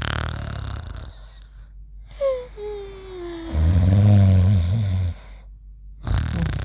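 Cartoon snoring: a low rasping snore, then about two seconds in a falling whistle on the out-breath followed by a loud, low rumbling snore. Two short dead-silent gaps break it up.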